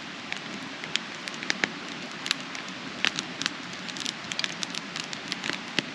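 Small campfire of wood and magazine pages crackling, with many irregular sharp pops over a steady hiss.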